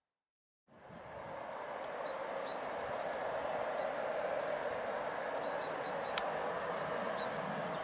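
Dead silence for under a second, then steady outdoor background noise swells in and holds, with faint short high chirps scattered over it and a single sharp click about six seconds in.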